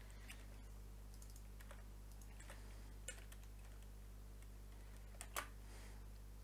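Computer keyboard typing: a few faint, scattered keystrokes, the clearest about five seconds in, over a steady low hum.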